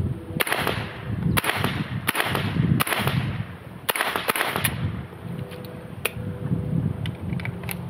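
Kodiak K9 9mm semi-automatic carbine with an 18-inch barrel firing a string of about seven shots at an uneven pace over some four seconds. Each sharp crack is followed by a short ringing echo. A few fainter sharp cracks follow near the end.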